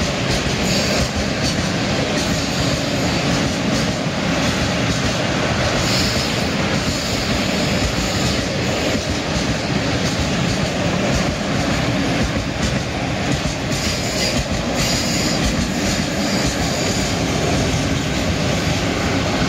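Freight train of open wagons rolling steadily past: a dense, continuous rumble with wheels clicking over the rail joints and a few brief higher metallic squeals.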